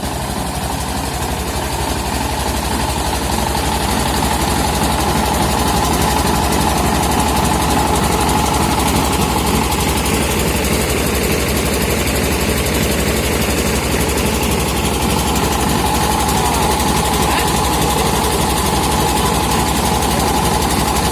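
Engine-driven portable rice milling machine running steadily, the engine beating fast and evenly, growing louder over the first few seconds and then holding.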